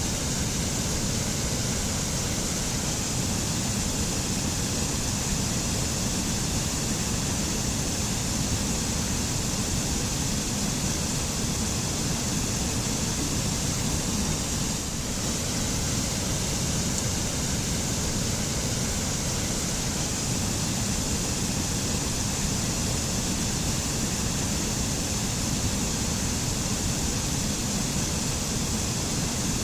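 Waterfall rushing steadily, a continuous deep rumble under a high hiss, dipping slightly for a moment about halfway.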